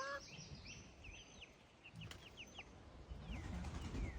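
Baby chicks peeping: a run of short, high, falling peeps, dense at first and thinning to a few scattered peeps after about a second and a half.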